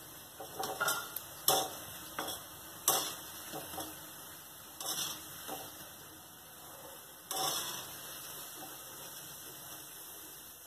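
A metal slotted spoon clinking and scraping against an iron kadhai as fried dal dumplings are lifted out of hot oil, a few separate knocks, over a faint steady sizzle of frying oil.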